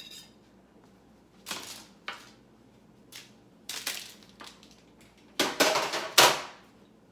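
Kitchen items being handled on a counter: a few short clattering, rustling noises, with a louder cluster about five and a half to six and a half seconds in.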